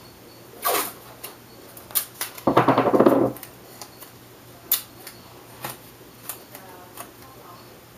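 Blue painter's tape pulled off its roll with one short rasping rip about two and a half seconds in, surrounded by light single clicks and taps as the tape is handled and pressed down onto a veneer piece.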